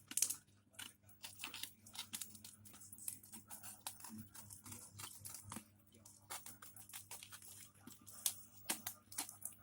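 A package being opened by hand: packing tape and plastic wrapping tearing, crinkling and crackling in irregular bursts.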